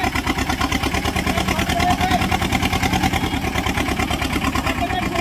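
Sonalika tractor's diesel engine running hard under load in a tug-of-war pull, with a steady rapid throb.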